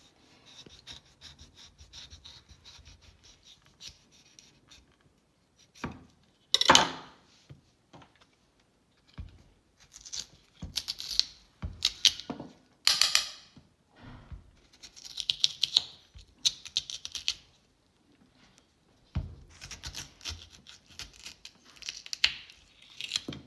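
Irregular scraping and scratching in bouts, with scattered clicks and one sharp knock about six and a half seconds in.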